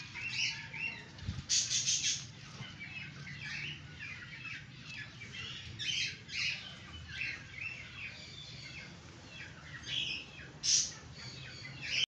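Small birds chirping all around, many short high chirps one after another, over a faint low hum. A couple of louder bursts come about a second and a half in and near the end.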